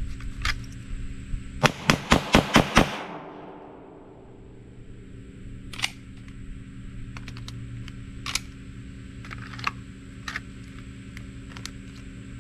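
Sig Sauer P320 Spectre Comp 9mm pistol fired six times in rapid succession, about five shots a second, as a Bill drill, the last shot ringing away. A few faint, sharp clicks follow later, spaced seconds apart.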